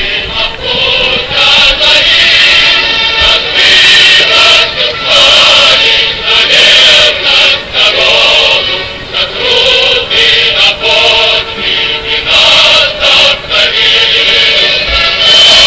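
Loud music with several voices singing together, in phrases broken by short pauses every second or two.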